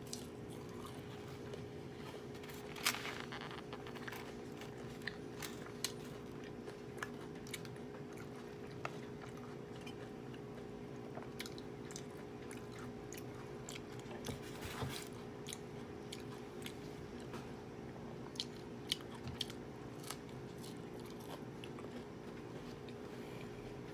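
Close-miked chewing of food, with scattered crisp crunches and wet mouth clicks, the loudest crunches about three seconds in and again around the middle. A steady low hum runs underneath.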